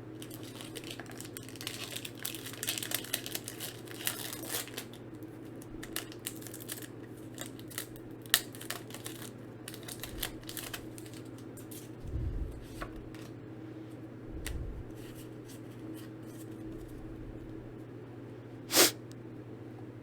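Foil Pokémon card booster pack being torn open and crinkled, followed by cards being handled, with scattered small clicks and rustles and a short loud rustle near the end. A steady low hum runs underneath.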